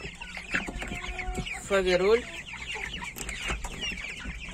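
A flock of young chickens of mixed breeds (Mechelen cuckoo, Faverolles, Bresse Gauloise, Borkovska Barvysta) peeping and clucking while feeding, many short high calls overlapping without a break.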